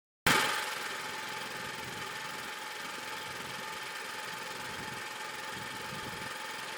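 Electric arc welding on steel rebar: the arc strikes suddenly, loudest at the strike, then burns with a steady crackling hiss.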